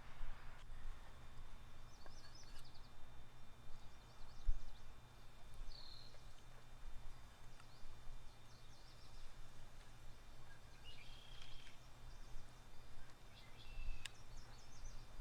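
Birds chirping in short, scattered calls over a steady low rumble, with a soft thump about four and a half seconds in.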